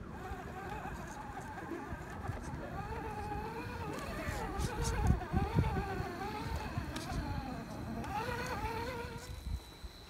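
Electric motor and geartrain of a scale RC rock crawler (Axial SCX10 II Jeep Cherokee) whining as it climbs rock, the pitch rising and falling with the throttle. Low buffeting comes about halfway through, and the whine fades near the end.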